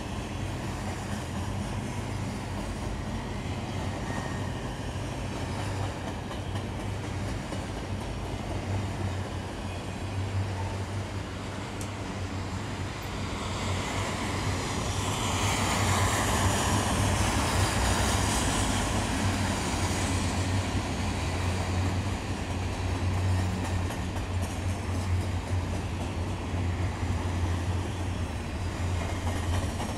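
Double-stack intermodal well cars of a freight train rolling past, a steady rumble of steel wheels on rail. The sound grows louder and hissier for several seconds around the middle, then settles back.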